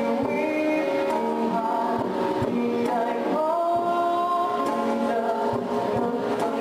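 Live acoustic performance: a singer at a microphone carries a melody in long held notes, accompanied by an acoustic guitar and a cajon.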